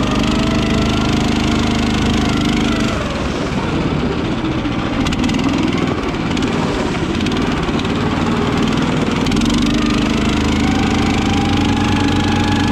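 Tinger Dog Pro tracked motor sled's 13.5 hp Briggs & Stratton four-stroke engine running under way while towing a sled. The engine note wavers up and down in the middle and steadies again about nine seconds in, with a faint whine rising in pitch.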